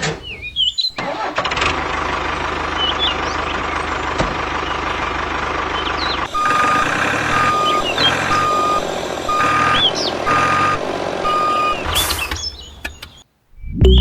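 Mini tractor's small motor running steadily, then a reversing beeper sounding six times, about once a second, over the running motor.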